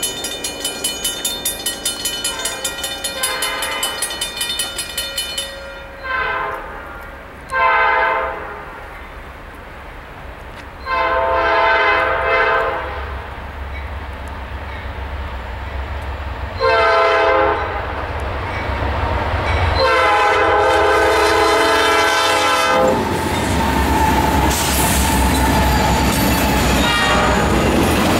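A grade-crossing bell ringing rapidly, then a Norfolk Southern diesel locomotive sounding its air horn in a series of long and short blasts for the crossing as it approaches. Near the end the locomotives pass close with a steady engine rumble and the clatter of double-stack intermodal cars on the rails.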